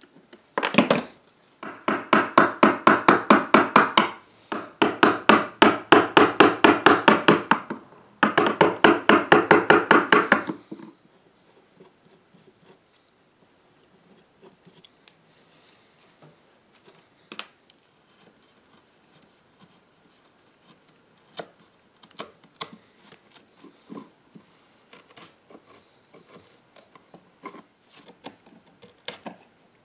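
Hand saw cutting through a small block of wood in three runs of fast, even strokes over the first ten seconds or so, then scattered soft clicks and scrapes of a chisel paring wood.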